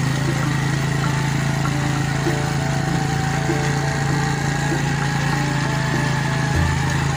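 Motorcycle engine running at a steady pace, with an even, unchanging drone.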